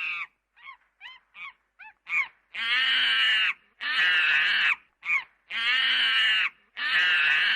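Monkey calls: a run of short hoots that rise and fall in pitch, then four long, loud screams of about a second each.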